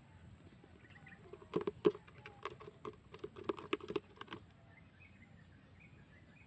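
A quick run of irregular light taps and clicks lasting about three seconds, over a steady high hiss.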